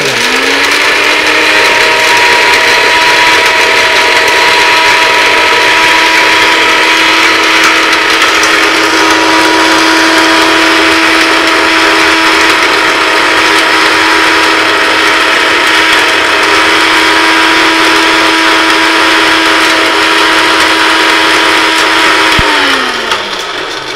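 Small electric blender-grinder motor grinding whole spices (cinnamon, bay leaf, pepper, cumin) into masala powder. It spins up at the start, then runs steadily with a high whine over a loud hiss of spice churning in the jar, and winds down near the end.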